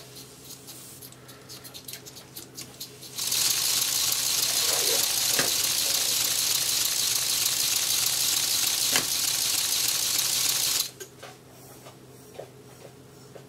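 Lego pneumatic inline-12 engine running on compressed air: a loud, steady hiss of exhausting air that starts abruptly about three seconds in and cuts off suddenly near eleven seconds. Light clicks come before and after it.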